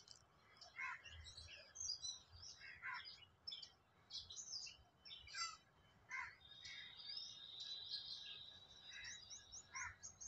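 Faint birds chirping in the background: many short, high calls scattered throughout, with a thin steady high note held for about two seconds in the second half.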